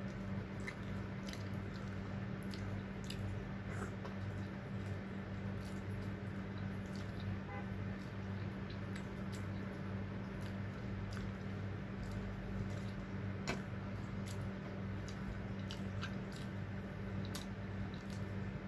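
Close-miked chewing of fried tawilis, eggplant and rice: wet mouth sounds and scattered small clicks, over a steady low electrical hum.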